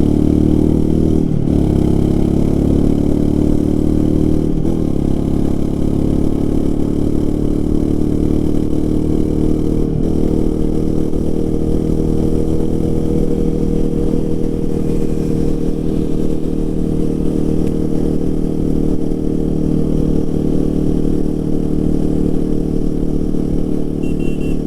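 Royal Enfield Himalayan 450's single-cylinder engine and exhaust running under way on the road. The engine note dips briefly three times in the first ten seconds, then holds steady.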